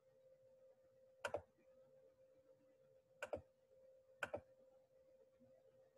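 Three faint computer mouse clicks, about a second in, about three seconds in and a second after that, each a quick pair of ticks, over a faint steady hum.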